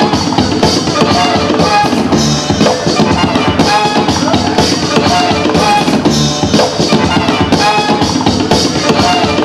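Loud music with a steady drum beat, the backing track for a breakdance battle.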